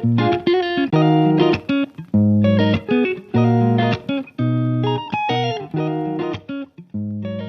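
Background music: plucked guitar playing rhythmic chords and notes.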